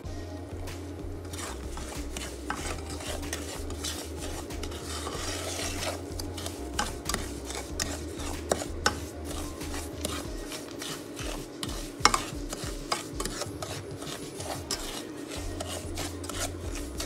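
Plastic slotted spoon stirring and scraping thick, butter-rich semolina halwa around a nonstick pan, with many quick scrapes and small taps against the pan.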